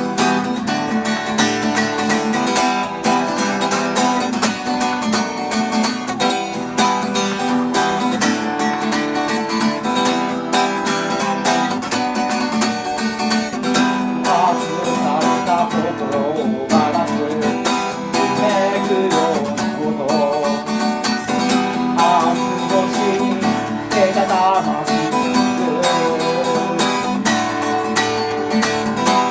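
Acoustic guitar strummed steadily in a rhythmic chord pattern, the instrumental opening of a solo guitar-and-voice song.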